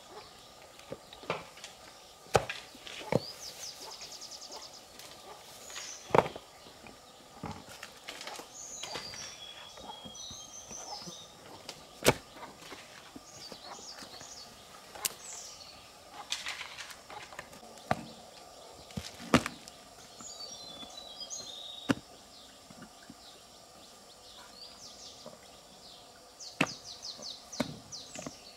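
Sharp knocks at irregular intervals, a few seconds apart, the loudest sounds, with birds chirping in short, rapid trills between them.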